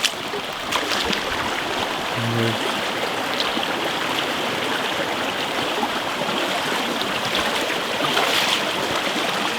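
Small woodland stream rushing and splashing steadily, loud and close to the microphone, with a few sharp knocks in the first second.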